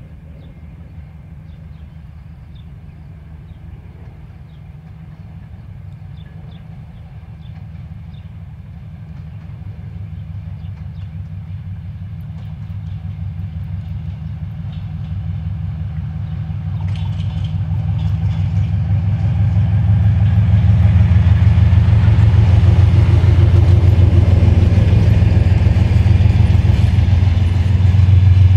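A single section of a 2TE10UT diesel locomotive with its two-stroke opposed-piston 10D100 diesel, hauling a departing passenger train. The deep engine drone grows steadily louder as the locomotive approaches and is loudest from about twenty seconds in as it passes close. Near the end the coaches roll past.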